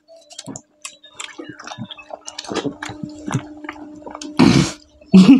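Wet, squishy slurping and smacking of ripe papaya flesh being bitten and sucked off the skin, a run of short irregular mouth clicks. About four and a half seconds in comes one loud, breathy slurp.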